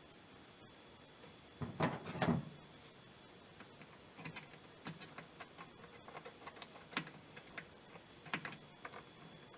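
Clattering and clicking from parts being handled during a washing machine repair: a loud clatter about two seconds in, then scattered light clicks and taps.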